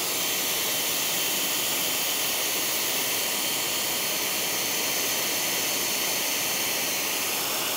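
Pressure washer spraying a wide 40-degree fan of water through a McKillans 40° 4.0 nozzle: a steady, even hiss of high-pressure water.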